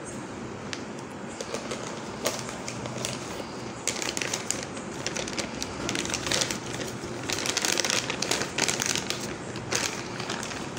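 Clear plastic packing bag crinkling and rustling in irregular bursts as it is handled and unwrapped, loudest from about four seconds in until near the end.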